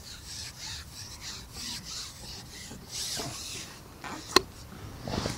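Rhythmic rasping rub, about three strokes a second, then a single sharp click a little over four seconds in.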